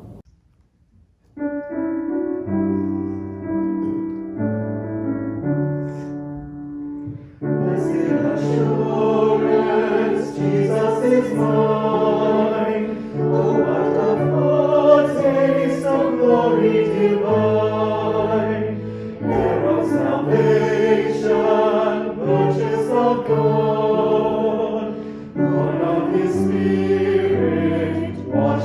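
Music: after a brief pause, a keyboard plays held chords as an introduction, then a choir comes in singing a hymn with the keyboard accompanying, from about seven seconds in.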